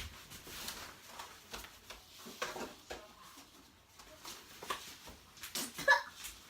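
A few brief disgusted vocal noises from a person, amid small scattered clicks and rustles of handling.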